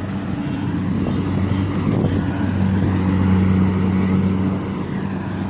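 Rice combine harvester's engine running with a steady drone that swells a little around the middle.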